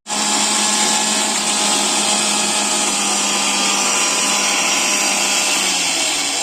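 A small electric motor appliance runs steadily at high speed with a loud whirring noise. It starts abruptly, and its hum sags slightly in pitch near the end.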